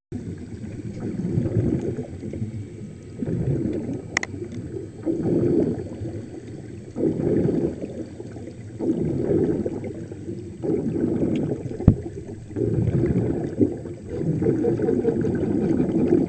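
Air bubbles gurgling underwater from surface-fed helmets of an underwater helmet walk, in surges about every one and a half to two seconds. A sharp click comes about twelve seconds in.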